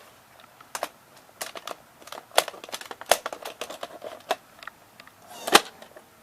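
Plastic clicks and knocks of a VHS cassette being handled and inserted into a full-size VHS camcorder's cassette compartment, a dozen or so separate clicks with a louder knock about five and a half seconds in.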